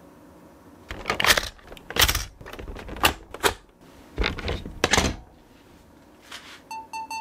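Several bursts of sharp clicks and rattles of hard plastic toy parts being handled and fitted together. Electronic music with a steady tone starts near the end.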